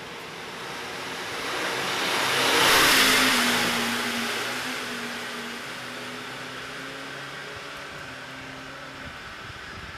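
A car passing on a wet road. Its tyre hiss swells to a peak about three seconds in, then fades slowly, over a low engine hum.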